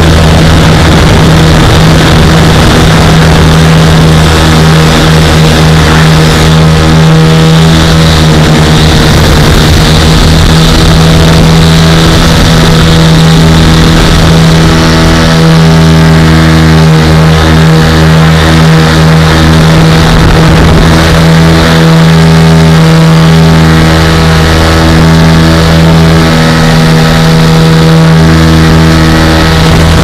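Lazair ultralight's engines and propellers running steadily in level flight, a loud, even drone.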